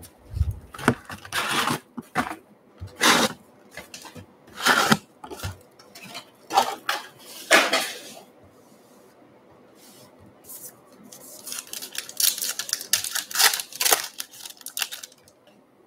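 Cardboard card box and foil trading-card packs being handled on a wooden table: a low thump about half a second in, then a series of sharp rustles and clicks as packs are unloaded and set down. About eleven seconds in, a pack's wrapper is torn open with a run of crinkling.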